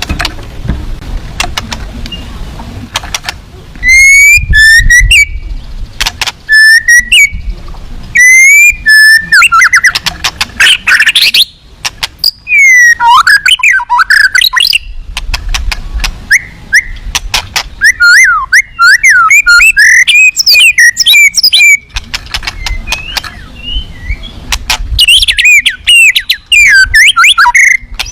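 White-rumped shama (murai batu) singing: loud, varied bursts of whistled phrases with fast rising and falling notes, separated by short pauses, with sharp clicks among them.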